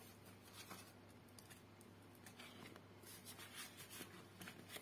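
Faint rustling and light clicks of paper banknotes being handled and slipped into a clear plastic pocket of a ring binder, over a low steady hum.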